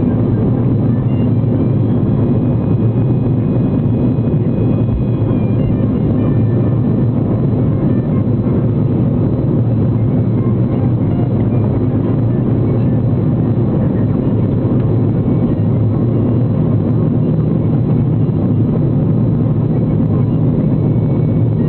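Jet airliner cabin noise heard from inside the cabin: the engines and the airflow over the fuselage make a steady low rumble, with a few faint high tones above it.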